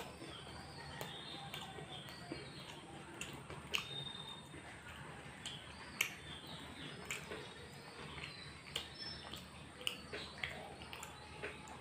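Eating sounds of a fried samosa being bitten and chewed: irregular sharp crunches and wet mouth smacks.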